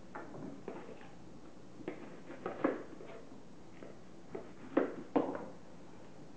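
A spoon knocking and scraping against plastic mixing bowls as whipped cream and chocolate pudding are scooped out and spooned into a glass bowl. The knocks are scattered and irregular, with the loudest near the middle and a pair of sharp ones a little before the end.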